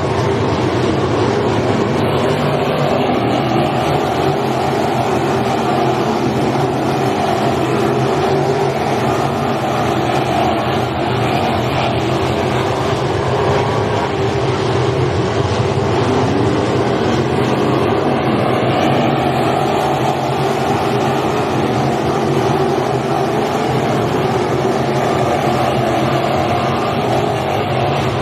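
Several wingless sprint cars racing on a dirt oval, their engines running loud and continuous, the pitch rising and falling as the cars go through the turns and down the straights.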